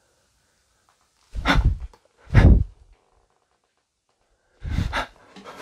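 Three short, heavy bursts of noise close to the microphone, each about half a second long: two about a second apart near the start, a third about two seconds later.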